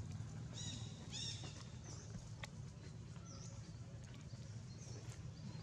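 Outdoor ambience: a steady low rumble under a few short, high chirping animal calls, the two loudest about half a second and a second in, with fainter ones later.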